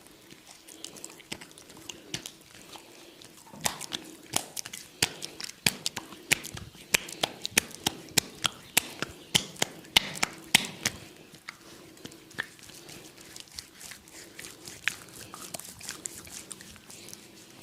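Hands massaging oiled skin: a quick run of sharp, wet slaps, about three a second, lasting several seconds, with softer rubbing and occasional lighter slaps before and after.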